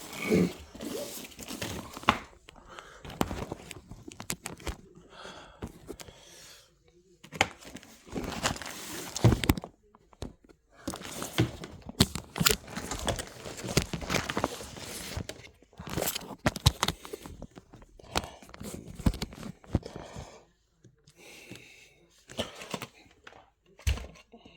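Camera handling noise: irregular rustling, crinkling and knocking as the camera is moved and set in place, coming and going with short pauses.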